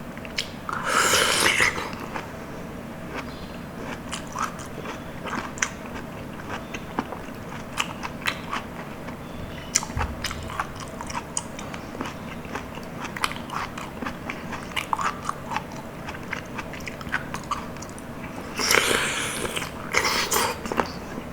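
Close-miked eating sounds: wet, sticky chewing of soft, jelly-like palm fruit with many small mouth clicks. Two louder, longer noisy swells come about a second in and again near the end.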